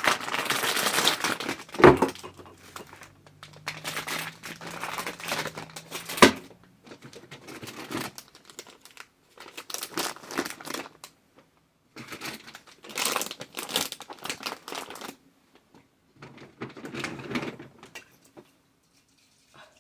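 Crinkly packaging handled in several bursts of rustling, with two sharp knocks about two and six seconds in.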